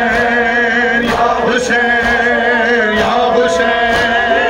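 Men chanting a noha, a Shia mourning lament, in held, wavering notes with a crowd singing along. Sharp slaps about every half second run under it, the chest-beating (matam) of the mourners.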